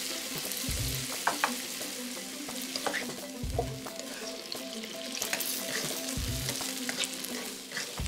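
Broccoli, carrot and shiitake mushrooms sizzling in a non-stick wok with a little water just added, stirred and tossed with a spatula that scrapes and taps against the pan. Three dull low thumps fall about three seconds apart.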